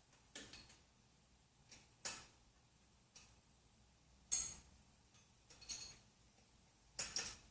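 Scattered sharp metallic clicks and clinks, about seven, at irregular intervals, from hand tools and parts being handled.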